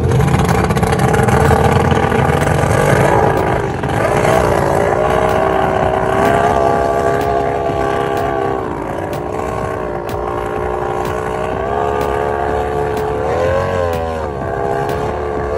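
Several F1 powerboats' two-stroke V6 outboard engines running together while the boats are held tethered at the pontoon. The engine notes waver and dip and rise a few times, with a quick rise in pitch near the end.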